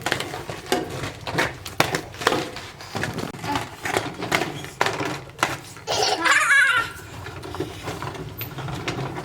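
A child laughing with a loud, wavering squeal about six seconds in, among scattered clicks and knocks.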